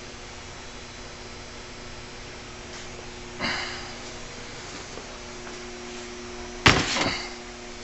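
Steady low hum with two sharp knocks of workshop handling, one about three and a half seconds in and a louder one near the end.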